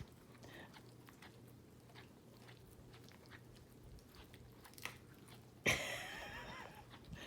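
Dogs gnawing on dried turkey chew sticks: faint, irregular clicks and crunches of teeth on the chews, with a louder burst a little before the end.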